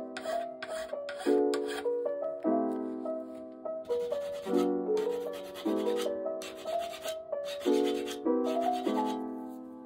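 Background piano music, with repeated hand-file strokes rasping on a steel bicycle frame's rear dropout and derailleur hanger.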